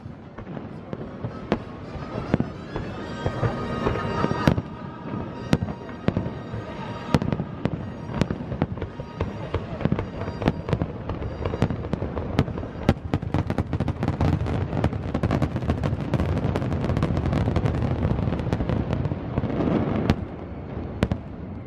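Fireworks finale: many aerial shells bursting in quick succession, thickening into dense crackling past the middle, with the show's music underneath.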